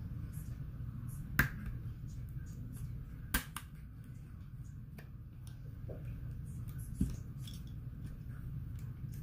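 Sharp plastic clicks as a guitar pick pries around the edge of a CAT S48c rugged phone and the back cover's clips pop loose. The loudest comes about a second and a half in, with others near three and a half, five and seven seconds, over a steady low hum.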